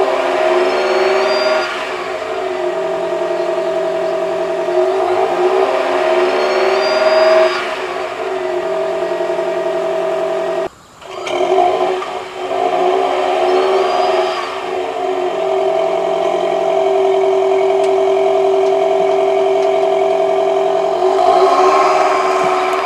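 Toyota Prius ZVW30's 1.8-litre four-cylinder engine revved repeatedly in place through an HKS LEGAL aftermarket exhaust, each rev swelling for a couple of seconds and settling back, with a faint high electronic whine from the hybrid system rising alongside the revs. There is a short break about eleven seconds in, and near the end the car pulls away.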